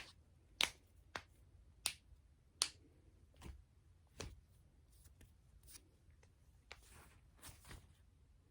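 Joints being cracked by hand manipulation, popping in a series of sharp cracks. Several loud pops come in the first three seconds, then fainter ones at irregular intervals.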